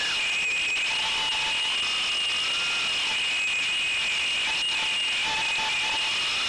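Brushless motors and propellers of a 3-inch FPV quadcopter, heard through its onboard camera's microphone: a high whine over a steady hiss, with the motor pitch rising and falling several times as the throttle changes.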